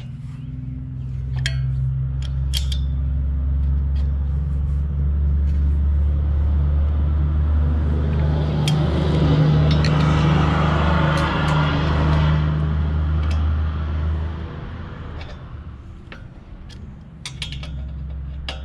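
A road vehicle passing: a steady engine drone swells in over the first couple of seconds, engine and tyre noise peaks about ten seconds in, then fades out by about fourteen seconds. Light metallic clinks of wrenches on a nut come near the start and again near the end.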